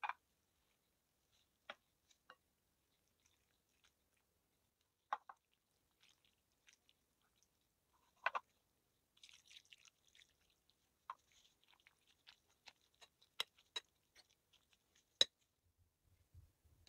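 Near silence broken by scattered faint clicks and soft taps, a dozen or so, with a brief faint hiss about nine seconds in and one sharper click near the end.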